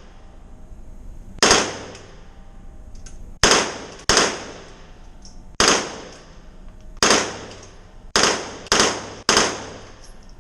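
Gunshots on an indoor shooting range: eight sharp, loud reports fired singly or in short pulls at uneven intervals, the last three close together, each ringing off in the room.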